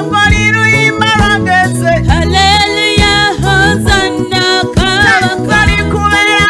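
A woman singing a worship song into a microphone, her voice amplified over instrumental backing with held low notes and a steady beat.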